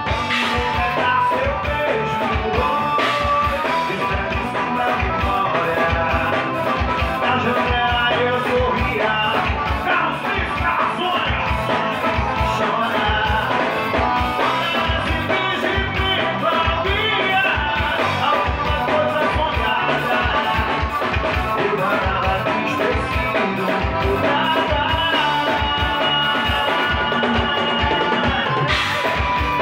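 Live band playing with a steady drum beat: accordion, drum kit and electric guitar, with a singer on microphone.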